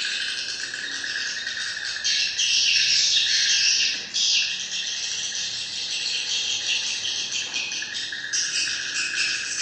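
Swiftlets chirping in a dense, continuous chatter of high, buzzy twittering calls, with brief dips around four seconds and eight seconds in.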